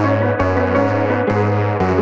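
Background music with held chords and a bass line over a steady beat, about two beats a second.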